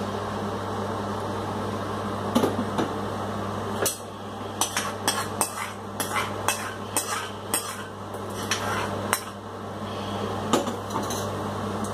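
Steel ladle knocking and scraping against a metal pan while rasam is emptied from it into a steel bowl: a quick run of sharp metal clinks and taps over a steady low hum.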